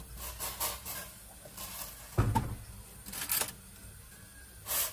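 A whole octopus lowered into a stainless steel pot of water to boil: several short splashes, with a dull knock against the pot about two seconds in as the loudest sound.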